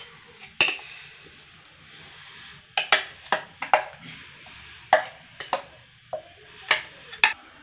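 A steel spoon scraping and knocking against a stainless steel mixer-grinder jar as thick ground tapioca paste is scraped out into a glass bowl. There are about a dozen irregular sharp clinks, some in quick pairs, over a soft scraping.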